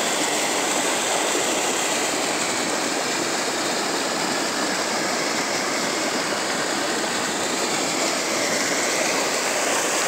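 Muddy floodwater rushing over rocks at a small waterfall, a steady rush of whitewater with a strong current.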